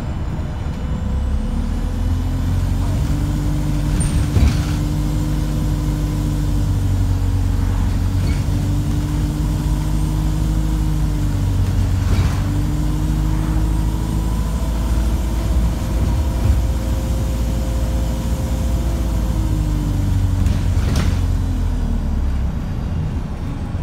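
ADL Enviro350H bus engine heard from inside the saloon, working hard under load. It rises in pitch soon after the start, holds with a couple of small steps, then eases off near the end. A few knocks and rattles come from the body. The engine has been described as thrashing and unhealthy.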